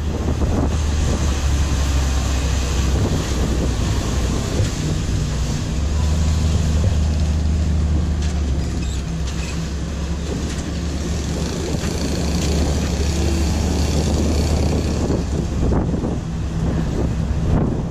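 A vehicle's engine running steadily with a low hum under a wash of travel noise.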